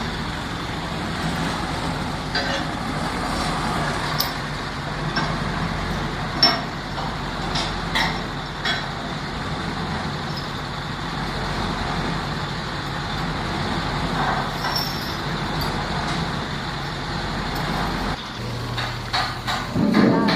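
Heavy machinery running steadily, with scattered sharp metallic knocks. Near the end a low steady hum starts, and a few louder knocks follow.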